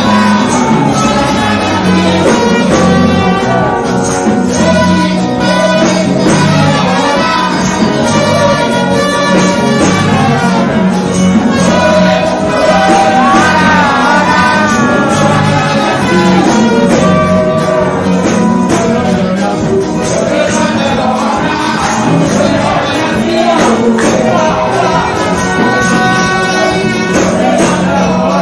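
Live Ghanaian gospel singing: a woman and a man singing into microphones over loud band accompaniment with a steady beat.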